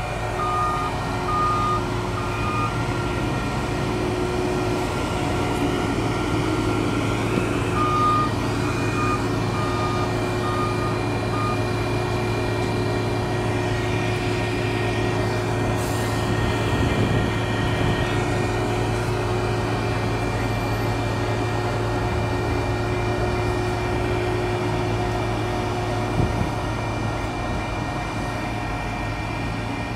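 Diesel engine of a railway work vehicle running steadily as it travels along the track, with an alarm giving short, evenly spaced beeps: three near the start and a run of about six around a third of the way in.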